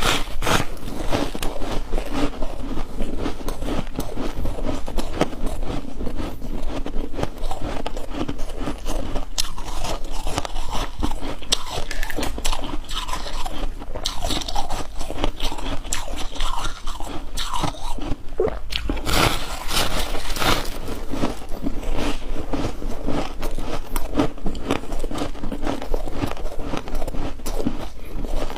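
Close-up crunching and chewing of ice chunks, bite after bite cracking the ice in quick succession, with a louder run of crunches about two-thirds of the way through.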